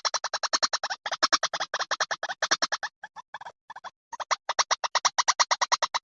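Background music: a synthesizer playing rapid staccato pulses, about a dozen a second, in runs broken by short pauses.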